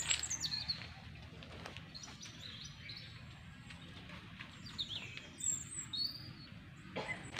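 Birds chirping: short, high calls and quick pitch slides scattered through, a few close together about five to six seconds in.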